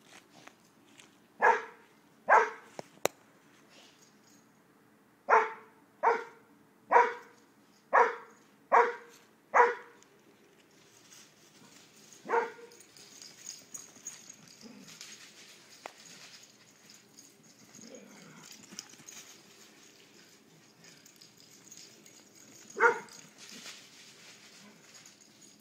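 A dog barking in single short barks: two about a second and a half in, a quick run of six between about five and ten seconds, one more a little later and a last one near the end.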